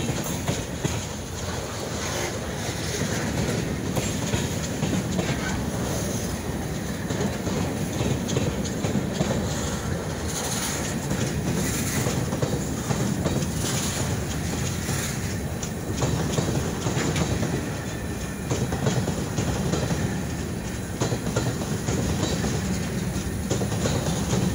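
Freight train rolling past, its wheels clicking steadily over the rail joints.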